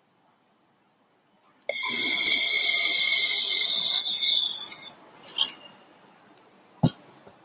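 Handheld fiber laser welding gun firing on a joint: a loud, steady high-pitched hiss with a whine in it. It starts abruptly about a second and a half in, runs about three seconds, then cuts off. A sharp click follows near the end.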